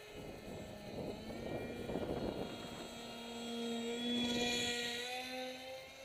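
Electric motor and 6x4 propeller of a foam RC J-20 model jet whining as it flies a close, low pass. The pitch rises about a second in, then holds steady and is loudest around four to five seconds in. Wind rumbles on the microphone through the first half.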